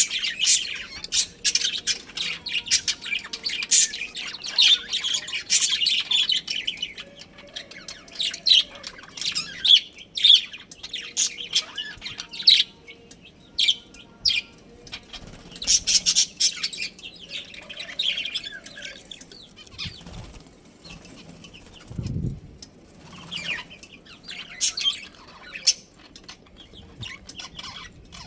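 A flock of budgerigars chirping and chattering in quick, high bursts that come and go, with one low thump about two-thirds of the way through.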